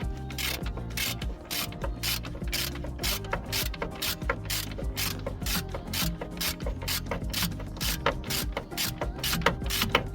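Hand ratchet clicking steadily, about four clicks a second, as it winds in the bolts of a wheel bearing hub assembly.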